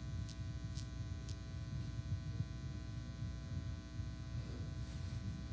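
Steady electrical hum and buzz, as from mains hum in the sound system, with a few faint clicks in the first second and a half.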